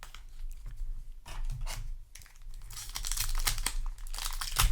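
Foil wrapper of a Yu-Gi-Oh! booster pack crinkling and tearing as it is handled and ripped open. The crackling grows louder after about two and a half seconds, with a sharp crack near the end.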